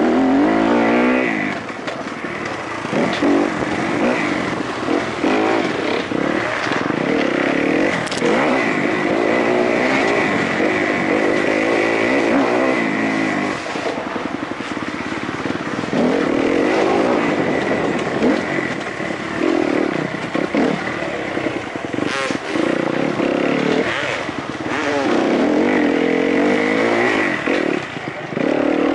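Kawasaki KX-F four-stroke single-cylinder motocross engine ridden hard, heard on board: revs rise and fall through the gears, with brief throttle-offs between climbs.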